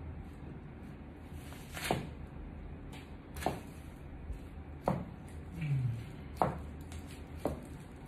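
Stiletto-heeled boots treading on apple pieces on a tiled floor: about five sharp heel strikes and crunches, roughly one every second and a half, over a low steady hum.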